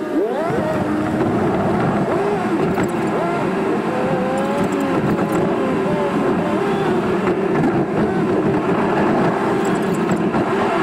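A car's engine and road noise heard from inside the cabin while driving, steady throughout, with the engine pitch rising just after the start and wavering after that.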